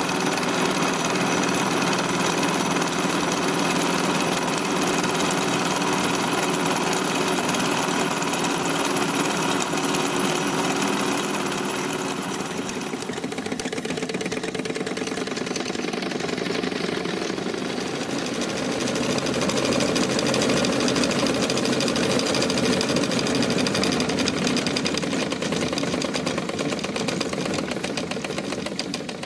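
Wilesco D-20 miniature steam engine running and driving belt-driven line shafting and toy workshop machines: a fast, steady mechanical clatter that changes in tone partway through.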